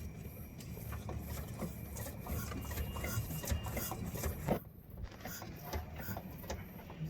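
Rapid metallic clicking and scraping of a wrench working the 17 mm nut off a stabilizer link stud. The clicks are thickest in the first four and a half seconds, then thin out.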